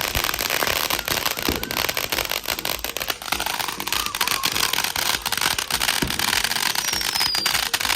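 Consumer fireworks crackling: a dense, rapid stream of small pops that goes on without a break, with a short falling whistle near the end.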